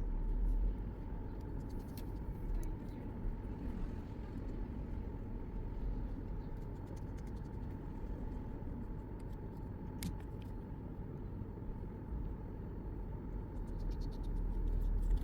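Steady low rumble and hum of background noise with a faint steady tone, and a few faint sharp clicks.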